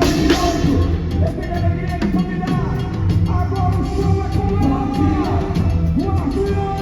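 Samba-school music played live and loud: a steady percussion beat, with voices singing a melody over it.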